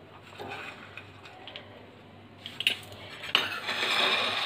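Metal pizza-cutter wheel rolling and scraping against a ceramic plate as it slices soft fried malpua pancakes, with a few light clicks and a louder scrape of about a second near the end.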